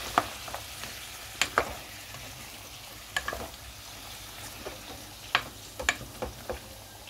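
Beef, chickpeas and tomato sauce sizzling in a stone-coated pan while being stirred with a spoon. The spoon knocks and scrapes against the pan several times at irregular intervals over a steady sizzle.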